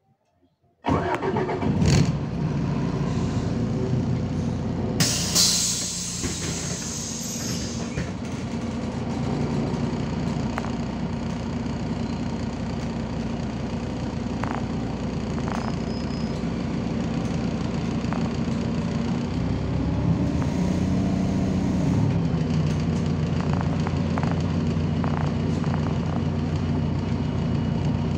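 MAZ-203 city bus's diesel engine running, heard from inside the bus, cutting in suddenly about a second in. About five seconds in there is a sharp hiss of compressed air from the bus's pneumatics, and a few light clicks later on.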